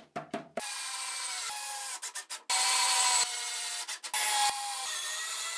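Cordless drill driving screws into the corner of a birch plywood box, the motor whining in several runs with two louder spells as screws bite into the wood.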